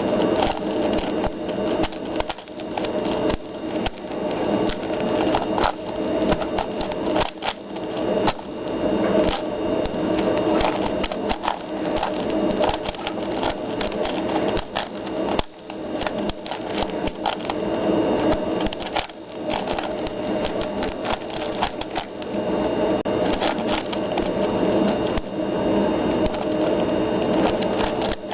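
A 4x4 Rubik's cube being turned quickly by hand: a continuous rapid clatter of plastic layers clicking and sliding, over a steady hum.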